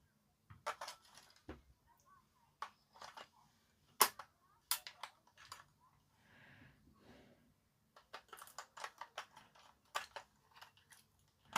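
Scattered small clicks and light knocks of batteries and plastic parts being handled while fresh batteries go into a toy bubble gun. One sharp click about four seconds in is the loudest, with a quick run of clicks near the end.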